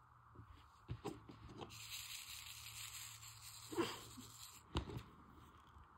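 Faint handwork sounds from diamond painting: a few light clicks and taps as a drill pen presses resin drills onto the sticky canvas, with a soft rustle for a couple of seconds in the middle.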